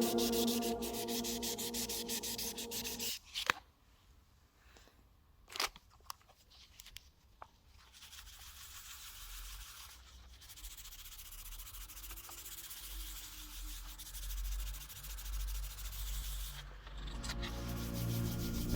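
Background music that stops about three seconds in, then a few isolated clicks and knocks, then a steady, quiet rubbing noise for several seconds before the music comes back near the end.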